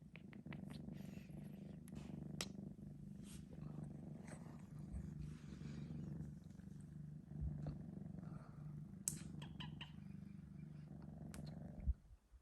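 Three-month-old Sphynx kitten purring steadily, a continuous low rumble with a few light clicks over it, stopping near the end.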